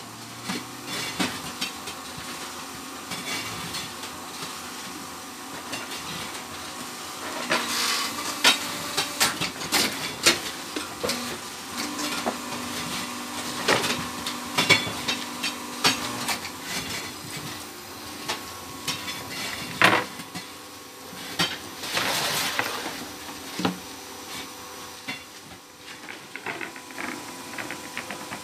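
Semi-automatic fly ash brick making machine in operation: a steady hum from its motor and pump with irregular metallic clanks and knocks as the mould and press work through a cycle, the loudest knock about two-thirds of the way through.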